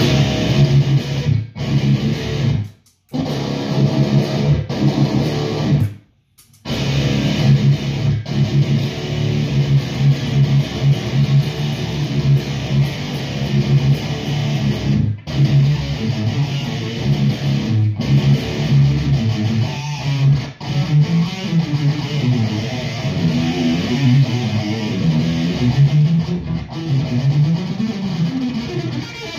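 Electric guitar played through a high-gain distortion pedal and a speaker cabinet: a continuous run of heavy low riffing, with two brief full stops about 3 and 6 seconds in.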